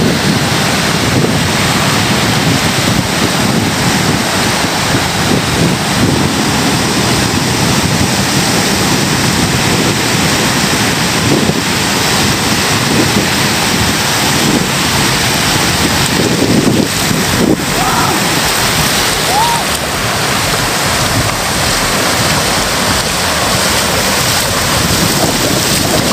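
Sea surf breaking and washing up the sand in a steady, loud wash, with wind rushing over the microphone.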